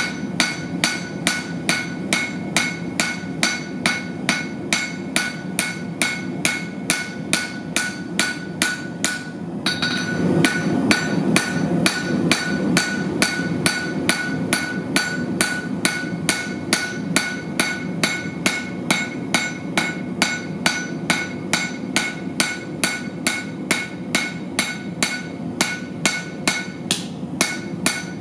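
Hand hammer striking glowing steel plate on an anvil in a steady rhythm, a little under three blows a second, each blow ringing, with a short break about nine seconds in. A steady low rumble runs underneath, swelling about ten seconds in.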